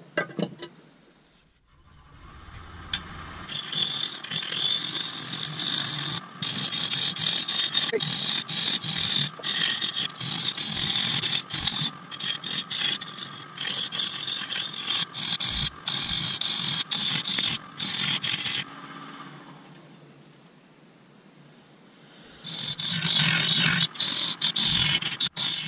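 Carbide turning tool cutting a spinning root-and-resin blank on a wood lathe while roughing out: a loud, steady scraping hiss, broken by many short gaps. The cutting starts about two seconds in, eases off for a few seconds near the end, then resumes.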